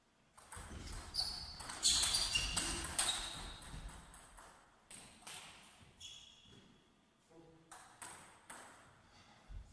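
Table tennis rally: the celluloid-type ball clicking in quick succession off the rubber bats and the table for a few seconds, with a few short high squeaks among the hits. After the point ends, a few scattered ball taps follow.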